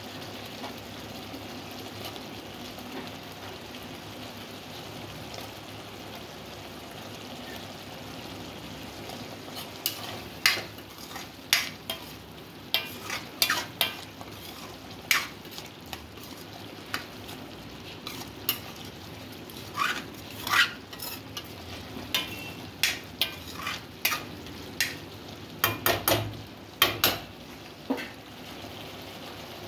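Spinach and gatte gravy sizzling steadily in a steel kadhai. From about ten seconds in, a steel ladle stirs it, with repeated sharp clinks and scrapes against the pan.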